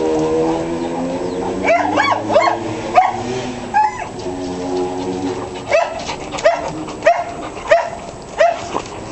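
A dog whining in a long, held tone, then giving short, high yelping barks: a quick cluster about two seconds in, and a steady run of barks about every two-thirds of a second through the second half.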